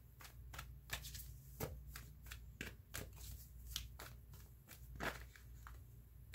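A deck of tarot cards being shuffled by hand: faint, irregular soft card clicks and slaps, several a second.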